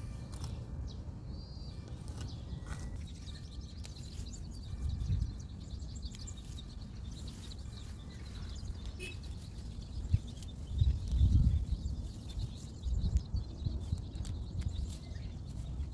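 Outdoor ambience: low rumbling gusts on the microphone that swell several times, with a few faint bird chirps.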